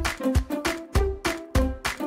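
Background music with a steady beat and short pitched notes.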